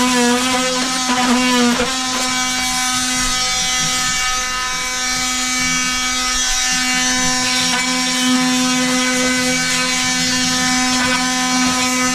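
Milwaukee cordless oscillating multi-tool buzzing steadily as its blade trims cured expanding foam flush with a timber door lining. The pitch wavers in the first couple of seconds and then holds steady.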